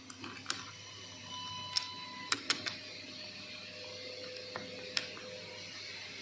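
CNC router running: a steady mechanical hiss with a thin motor whine that changes pitch a few times as the machine moves, and several sharp clicks.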